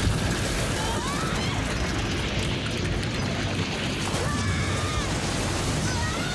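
Cartoon sound effect of a fiery blast and explosion: a loud, sudden onset that runs on as a dense rush of noise, with short rising tones about a second in.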